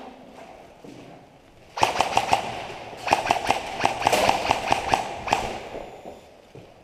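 Airsoft guns firing, a run of sharp cracks several a second from about two seconds in until just past five seconds.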